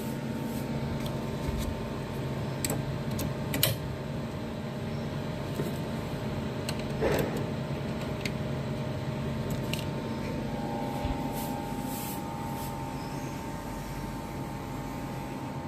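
Steady electrical hum from a switched-on power amplifier on the bench, with a few sharp clicks and a brief rustle as input cables are handled and plugged in. A thin steady tone joins the hum about two-thirds of the way through.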